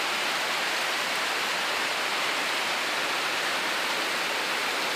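Steady rain falling on the forest, an even hiss with no breaks.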